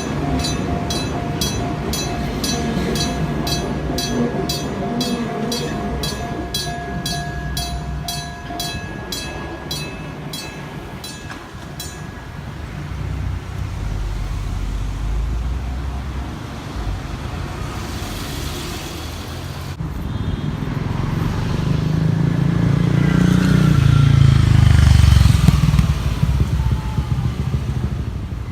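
Train-approach warning alarm at an Enoden street-running crossing, ringing in even strikes about twice a second over steady tones, then stopping about twelve seconds in. Road traffic follows, and near the end a vehicle passes close, growing loud with a whine that falls in pitch.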